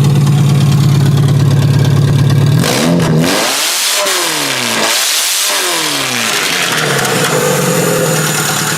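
1997–99 Toyota Camry engine running on a stand-alone wiring harness, idling steadily. About three seconds in it is revved, its pitch rising and falling twice, then it settles back to a steady idle, running pretty good.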